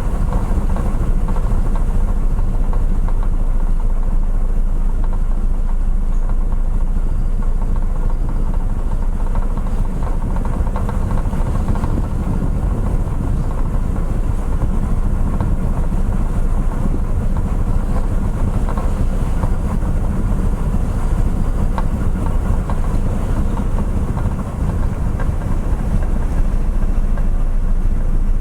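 Car ferry's engines droning steadily on board while under way, a constant low rumble with a faint steady hum, mixed with a rushing noise.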